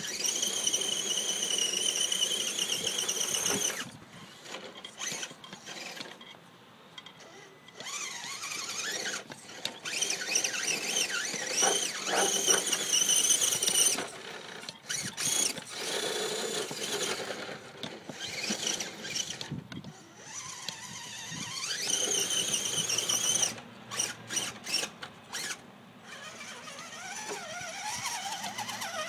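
High-pitched drivetrain whine from an electric Axial SCX10 RC crawler, its 35-turn Holmes Hobbies Torquemaster brushed motor and hardened transmission gears, coming and going in several bursts of throttle as the truck crawls over dirt and rocks, with quick stop-start blips in the last third.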